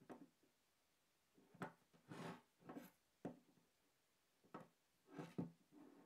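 Faint handling of a folded stainless steel Gerber Truss multi-tool on a wooden tabletop: several light clicks and knocks of the metal tool against the wood, with soft rubbing between them as it is turned over.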